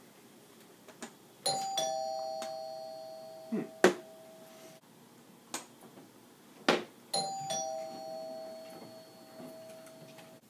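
Two-tone doorbell chime rung twice, a high note then a lower one, each ringing out for a few seconds, the two rings about five and a half seconds apart. A few sharp knocks fall between the rings, the loudest about halfway.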